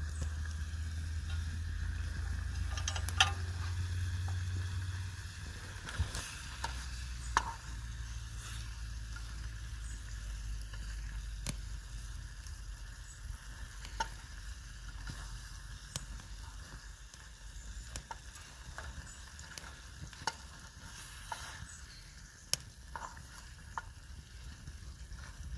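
Stew sizzling in a metal mess tin over a wood fire while a wooden spoon stirs it, with sharp clicks now and then.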